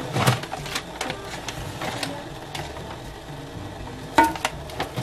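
Brittle dry rice noodle blocks crackling and clicking as they are handled and dropped into a stainless steel pot of boiling water, with a sharper knock and short metallic ring about four seconds in.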